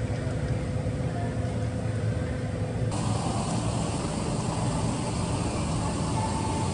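Loud, steady low mechanical drone with a faint steady tone over it, from a machine the recordist could not identify. About three seconds in its sound changes abruptly and gains more hiss.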